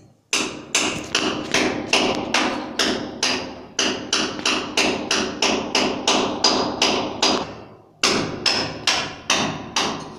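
A hammer striking the wall repeatedly at about three blows a second, each with a short metallic ring. It stops briefly near the end, then starts again.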